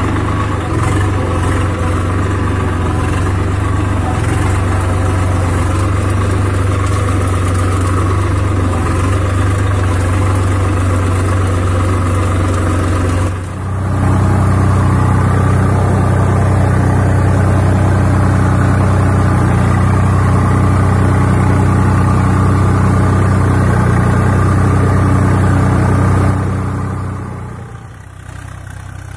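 Swaraj 742FE tractor's three-cylinder diesel engine running at a steady pace, heard close up from the driver's seat as an even low drone. Near the end it drops away and sounds farther off.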